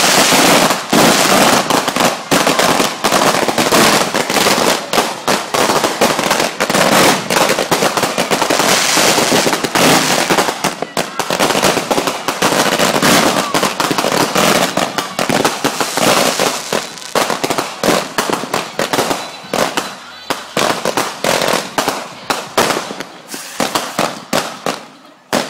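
Fireworks going off in a dense, rapid run of sharp pops and crackles, nearly continuous, thinning out into separate pops near the end.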